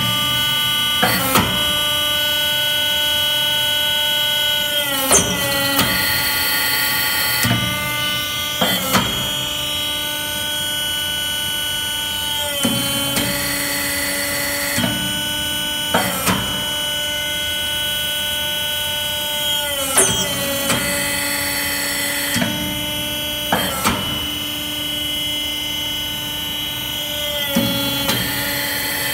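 Hydraulic power pack of a Gross Genius 1/40 briquette press running, its electric motor and pump giving a steady whine. Every few seconds the pitch steps down and back with a short click, as the press cycles through its strokes compacting pine planer shavings.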